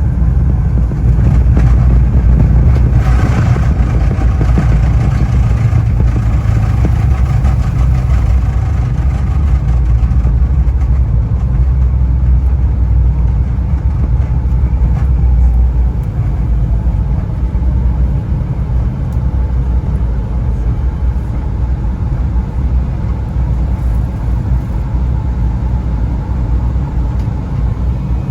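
Cabin noise of an Embraer E175 regional jet heard from a window seat: a loud, steady low rumble of its two GE CF34 turbofans and airflow, with faint steady whine tones above. It grows louder a few seconds in, stays strong through the first half, then eases to a lower level.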